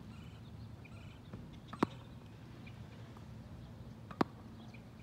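Two sharp pops of a tennis ball being hit on a wet hard court, about two and a half seconds apart, with faint bird chirps in between.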